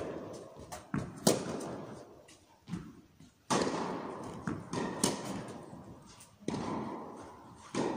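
Tennis rally: about five sharp racket-on-ball strikes, one every second and a half or so, each ringing on in the reverberant indoor hall, with softer knocks of ball bounces between them.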